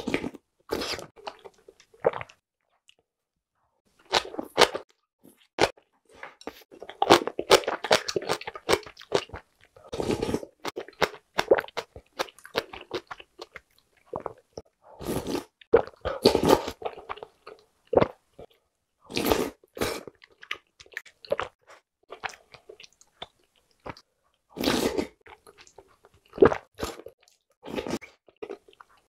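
Close-up eating sounds of spicy noodle soup: irregular slurps of broth and noodles from a plastic ladle spoon, and chewing, with a few short clicks between them.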